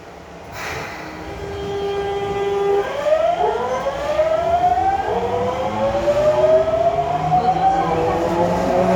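Osaka Metro 22 series subway train pulling away: its traction inverter and motors whine on a steady tone, then from about three seconds in several tones rise steadily in pitch as the train accelerates, growing louder.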